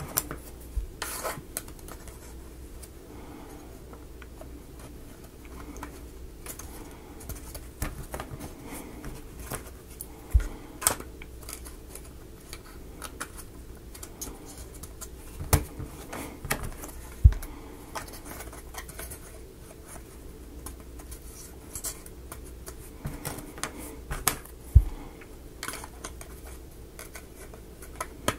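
Wooden model-kit parts being handled and fitted together by hand: scattered light clicks, taps and rubbing, with a handful of sharper knocks of wood on wood or on the work surface.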